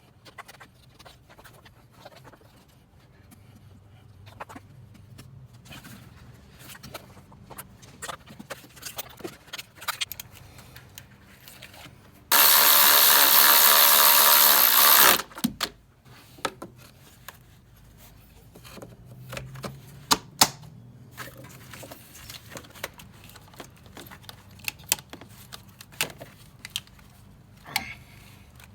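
Hand tools and metal parts clicking and clinking during engine reassembly, with a power tool running loudly for about three seconds midway through.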